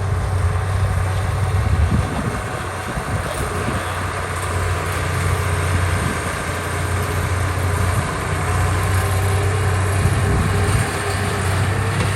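Diesel engine of a heavy construction machine running steadily, a deep even engine note that holds without revving up or down.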